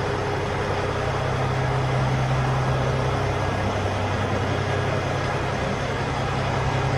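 Cummins X15 inline-six diesel of a 2022 International LoneStar idling, a steady low drone.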